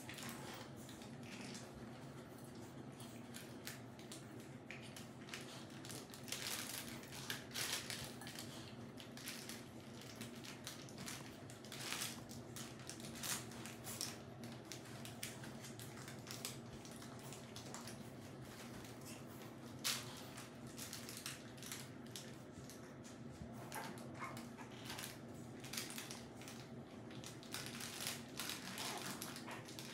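Boston terrier puppies shuffling and pawing about on blankets and a plush toy: irregular soft rustling and scratching, over a steady low hum.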